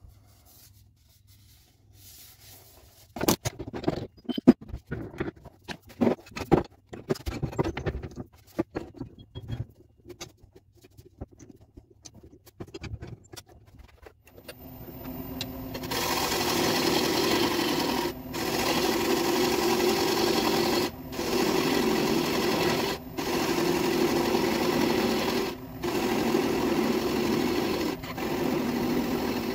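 Irregular knocks and clicks, then a wood lathe starts about halfway through and a gouge cuts a spinning green ash bowl: a steady cutting noise in passes of two to three seconds, each broken by a short pause.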